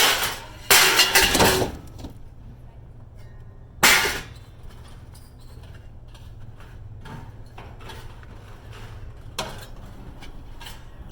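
Scrap being tossed and dropped with loud clattering crashes: one at the start, a longer one about a second in, another about four seconds in, and a faint clank near the end, over a steady low hum.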